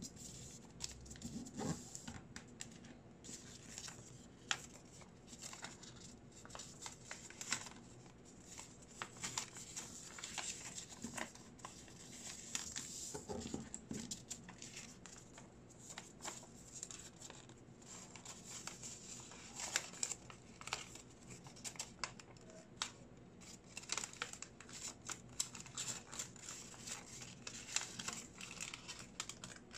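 Thin origami paper rustling and crinkling as it is folded and creased by hand, in frequent short crackles.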